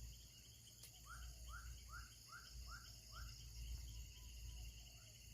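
Faint, steady drone of insects in the surrounding vegetation, with a run of about six short rising chirps, two or three a second, in the middle and a few fainter ones near the end.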